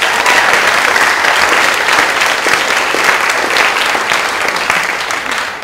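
Audience applauding, a dense clatter of many hands that dies down near the end.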